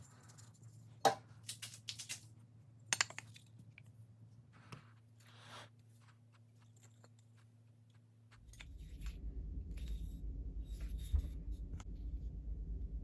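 A few sharp clicks and clinks of small metal parts being handled, then about eight seconds in a machine starts up and keeps running with a low, rattly rumble.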